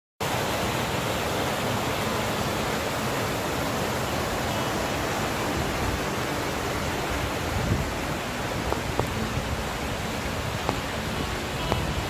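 Rushing water of a rocky stream tumbling over stones, a steady dense rush without pause. A few faint ticks come through in the second half.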